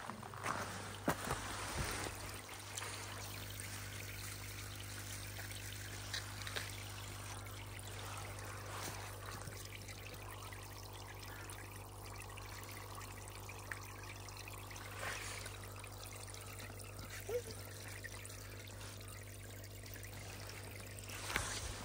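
Pond aeration air stones bubbling steadily in the water, with a steady low hum underneath.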